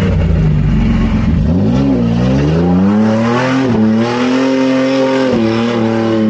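A car engine revving hard under acceleration. Its pitch climbs over a couple of seconds, then holds high, dipping briefly twice.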